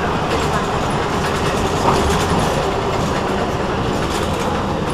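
Steady running noise and rattle of an Essen duo-bus driving through a tunnel and up its ramp on the shared tram and bus track, heard from the front of the vehicle, with a brief louder knock about two seconds in.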